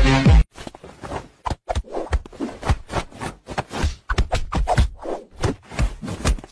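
Electronic dance music cuts off about half a second in. After that comes an irregular run of short taps and pats as a person's hand and a cat's paws bat at each other.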